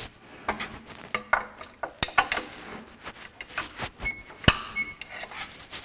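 Irregular metallic clicks, clanks and knocks from hand work on a partly split Ferguson TE20 tractor. The sharpest knock comes about four and a half seconds in, and a brief high squeak sounds twice around four to five seconds in.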